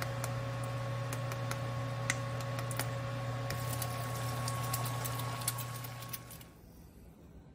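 Bacon and eggs frying in a nonstick pan: dense sizzling with scattered sharp pops of spattering fat, over a steady low hum. It drops away sharply near the end.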